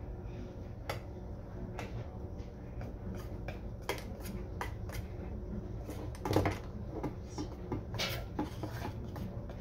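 A spoon stirring frosting in a stainless steel mixing bowl: irregular clicks and scrapes of metal against the bowl, with one louder knock about six seconds in.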